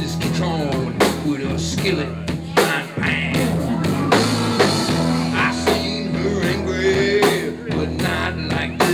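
Live rock band playing with a drum kit, electric guitars and keyboard, with a male singer's voice over the band.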